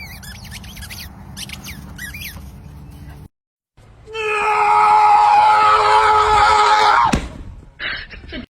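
High, squeaky chirps, then a brief cut to silence. After it comes a loud, steady scream held for about three seconds, which ends in a sharp falling drop.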